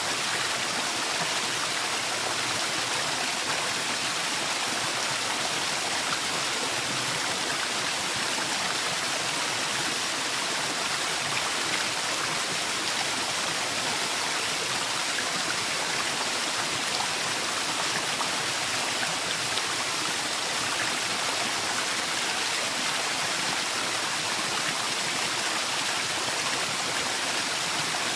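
Forest waterfall: a steady, even rush of falling water with no breaks or changes.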